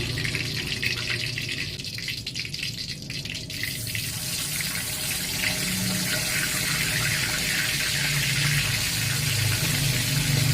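Water running from a kitchen tap into a sink, a steady splashing hiss over a low hum.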